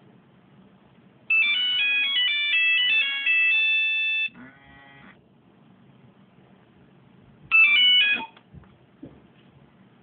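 Mobile phone ringtone: a beeping single-note melody plays for about three seconds, followed by a short buzz. About three seconds later the melody starts again and is cut off within a second.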